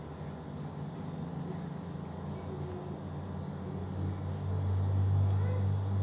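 A cricket chirping steadily in the background, a high note pulsing about five times a second, over a low hum that grows louder about four seconds in.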